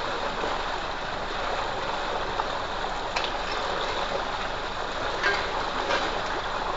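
Water gushing steadily from a pipe and pouring into a concrete bathing tank, a constant rushing noise, with a few light splashes from people moving in the water.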